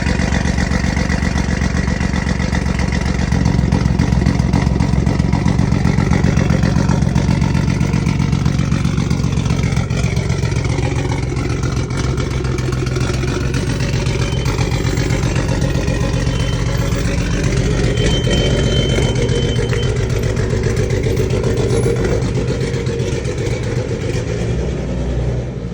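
BMW M240i's tuned, turbocharged B58 inline-six running at a steady idle on full E85, its spark plugs fouled. The sound cuts off abruptly near the end.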